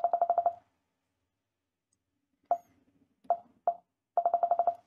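Metal tweezers scraping and picking at the plastic frame of a butterfly keyboard key mechanism to clear excess glue. The clicks come in quick runs of about ten, with single clicks between, and each one carries the same short ringing tone.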